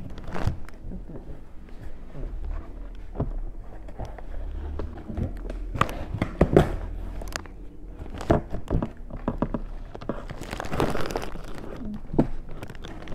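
Cardboard shipping box being opened by hand: rustling and scraping of cardboard, with scattered sharp clicks and knocks.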